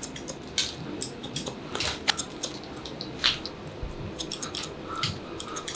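Hairdressing scissors snipping through a section of wet hair held between the fingers: a run of short, crisp snips at an uneven pace.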